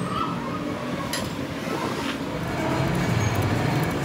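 Belt-driven engine lathe running with a truck axle housing turning in its chuck: a steady low hum, with two sharp metallic clicks about a second and two seconds in.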